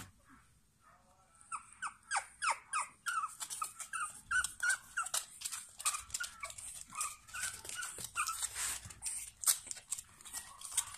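Pug puppies whimpering and yipping, short high-pitched falling cries coming several a second, starting about a second and a half in. A single sharp click at the very start.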